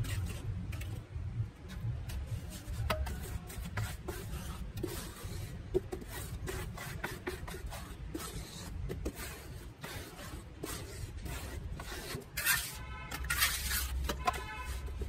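Trowel scraping wet cement into a metal tile mould and a wooden board rubbed across the fill to level it: many short, irregular scraping strokes. Near the end, two short pitched sounds.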